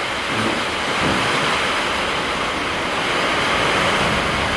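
Steady, loud roar of a strong storm wind, heard from inside a house.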